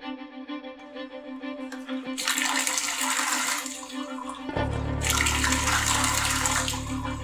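Water rushing from a wall tap in two bursts over background music. The music holds steady sustained tones, and a low hum comes in about halfway through.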